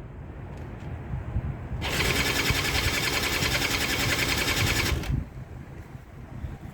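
An old quad's small engine turning over for about three seconds and then stopping abruptly without staying running. It is hard-starting because it has sat too long, and the owner suspects the carburettor needs cleaning.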